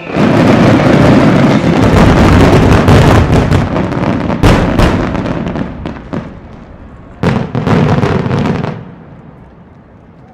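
Closing barrage of aerial fireworks shells bursting: a dense, continuous run of overlapping bangs for about six seconds, with two sharp reports around the middle. A last cluster of bangs follows about seven seconds in, then the sound dies away to a fading echo.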